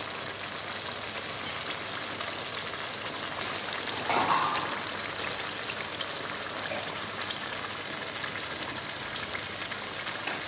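Chicken in tomato and biryani-masala gravy simmering and sizzling in a karahi, a steady crackling hiss as its water cooks off, with a brief louder swell about four seconds in.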